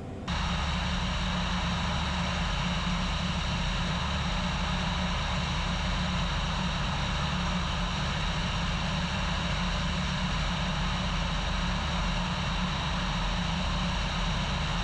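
Steady drone of a Cessna 177RG Cardinal's Lycoming IO-360 engine and propeller, heard from inside the cabin at a constant power setting, starting abruptly at an edit.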